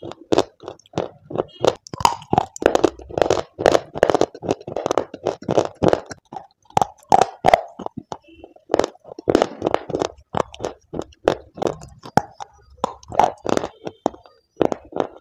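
Crunching and chewing of dry clay slabs, close to the microphone: many sharp crunches, several a second, as pieces are bitten off and ground between the teeth, with brief pauses.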